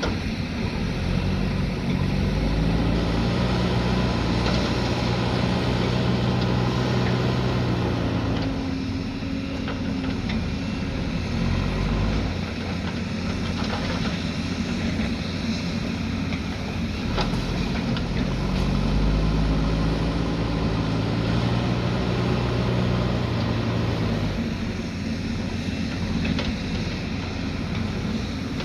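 Earthmoving machine's diesel engine working, revving up and holding high twice, with lower running in between as it works through digging cycles. A few sharp knocks are heard in the middle.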